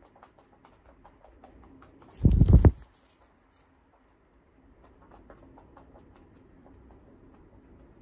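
Faint, irregular small clicks and soft rustling as a cockatiel has its head scratched with fingertips, broken by one loud, brief rustling thump about two seconds in.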